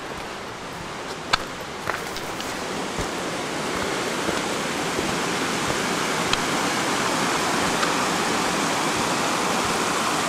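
Rushing mountain stream, a steady wash of water that grows gradually louder as it comes closer. A couple of sharp clicks in the first two seconds.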